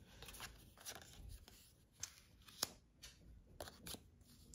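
Magic: The Gathering cards being handled and laid down on a playmat: a few faint, sharp clicks and light rubs of card on card, the sharpest about two and a half seconds in.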